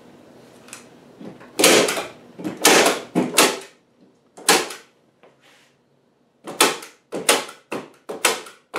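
Hand staple gun firing staples through screen netting into the redwood bottom of a planter box: a string of sharp clacks, several in quick succession in the second half.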